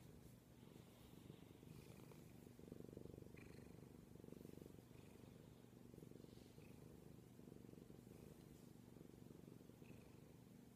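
Bengal cat purring while being stroked on the head: a faint, low, continuous purr that swells and eases with each breath.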